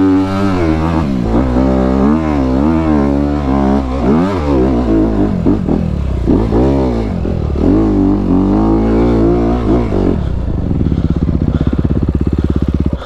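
Honda CRF250RX single-cylinder four-stroke dirt bike engine revving up and down under load on an uphill trail, then settling to a steady idle about ten seconds in.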